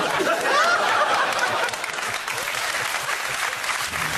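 Studio audience applauding, with some laughter and voices in about the first second.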